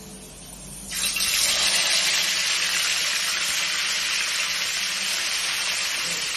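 Hot oil sizzling as food goes into a frying pan: a steady, loud sizzle that starts suddenly about a second in.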